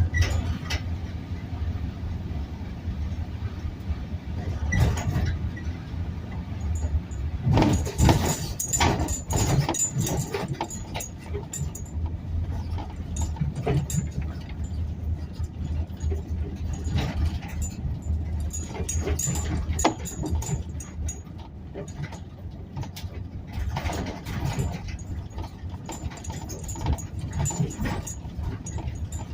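A vehicle engine running steadily, with irregular clicks, knocks and crunching over it, busiest about eight to ten seconds in.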